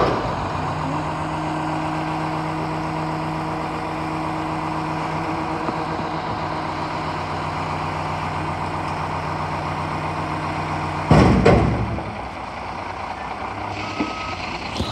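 Front-loader garbage truck's diesel engine held at a steady raised speed while the hydraulic forks lower the emptied dumpster, ending in a loud clattering crash as it is set down about eleven seconds in. The engine then drops back and a reversing beeper starts beeping near the end.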